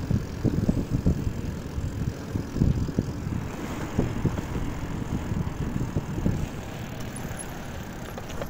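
Irregular, gusty low rumble of wind buffeting a phone microphone during a bicycle ride, mixed with road noise from the moving bike.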